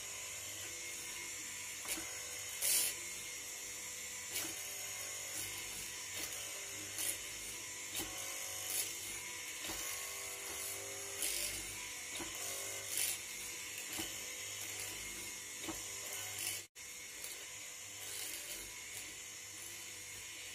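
Bull Tool 750-watt hollow-chisel mortiser running steadily while its chisel is plunged again and again into a wooden beam, each plunge a brief louder cutting burst about every second or two.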